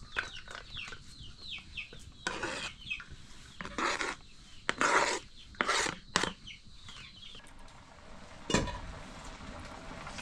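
Chickens calling with short, falling chirps for the first two seconds, then several short scraping, clattering sounds of a utensil worked in a cooking pot, and a single knock near the end.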